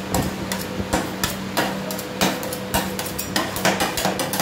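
Flat metal spatulas chopping and scraping ice cream mix on the stainless-steel cold plate of a rolled ice cream machine, making irregular sharp clacks several times a second. A steady low hum runs underneath.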